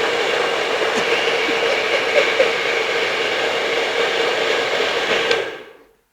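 Hair dryer blowing steadily with a constant hum, switched off about five and a half seconds in and running down to silence.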